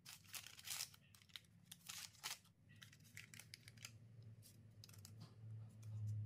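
Faint kitchen handling sounds: a run of short, scratchy strokes and light clicks, busiest in the first couple of seconds, over a low hum that swells near the end.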